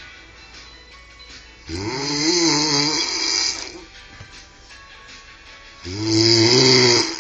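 A man snoring heavily in a drunken sleep: two long snores about four seconds apart, each a loud, wavering pitched drone lasting one and a half to two seconds.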